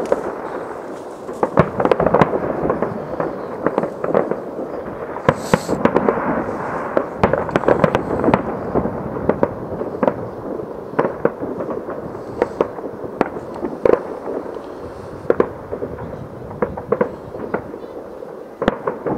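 Fireworks going off across a city: a steady wash of distant bangs and crackle, with frequent sharper bangs at irregular intervals and a brief high hiss about five seconds in.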